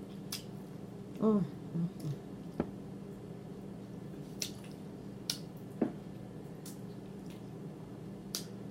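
Close-up wet mouth-smacking while chewing chicken: soft, scattered clicks every second or so, with a short hummed 'mm' about a second in. A faint steady hum runs underneath.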